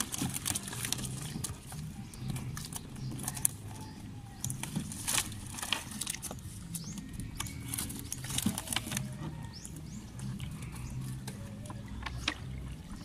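Wet cast net being hauled hand over hand into a canoe: scattered drips, small splashes and clicks of the net and its weights, over a steady low drone.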